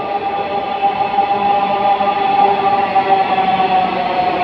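Metro train pulling into the platform, its electric drive giving a steady, layered whine that drifts slightly lower in pitch as the train slows.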